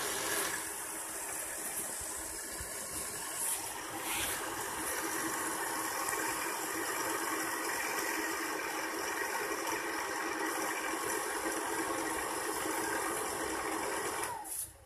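Olite AL96 tri-level power supply running on test: a steady whirring hiss with a few faint held tones. It stops near the end with a short falling pitch, as if powered down.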